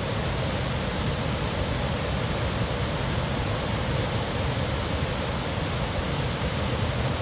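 A waterfall's falling water rushing steadily over rock: an even, unbroken noise with a strong low rumble underneath.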